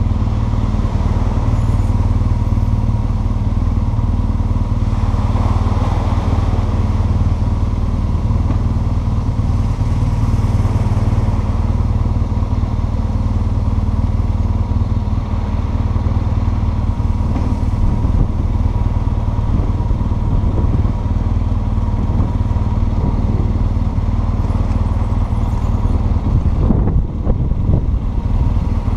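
Motorcycle engine running at low road speed, heard from the rider's seat as a steady low drone.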